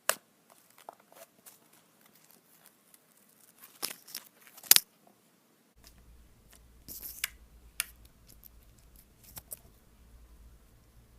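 Slime being handled by hand: scattered sharp clicks and crackles, with the loudest pop about four and a half seconds in and a crackly cluster about seven seconds in.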